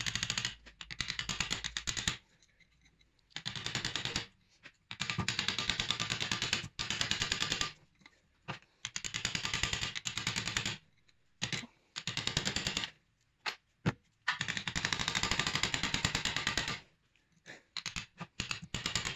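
Pneumatic air hammer (air chisel) hammering against the crimped metal cap of an inner CV joint, splitting its seam to free the old boot. It runs in bursts of one to three seconds of very rapid strikes, with short pauses between.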